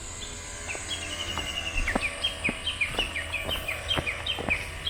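A bird calling close by in a rapid series of short, falling chirps, several a second. From about two seconds in, footsteps land about twice a second.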